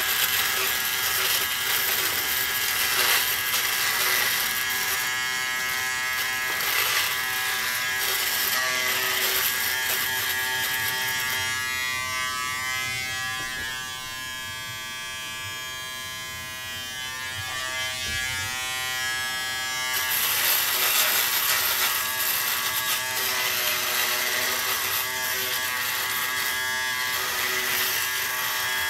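Remington Wetech PF7580 foil shaver running with a steady motor buzz while shaving stubble on the face, a scratchy rasp over the buzz. For several seconds in the middle the rasp fades and the buzz gets quieter.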